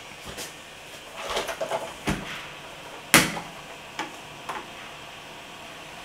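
Hard objects being handled: a short run of rattling clicks, a duller knock about two seconds in, a sharp, loudest knock about three seconds in, then two lighter clicks.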